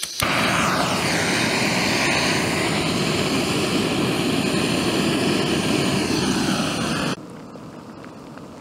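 Screw-on gas canister camping stove lit with a lighter and burning at full flame: a loud, steady hissing roar, with a faint whistle that falls in pitch during the first second. About seven seconds in it drops suddenly to a much quieter steady hiss.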